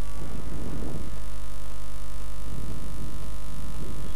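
Steady electrical mains hum, a low drone with a row of higher even tones over it, running throughout. Two stretches of faint noise sit beneath it, one early and one in the second half.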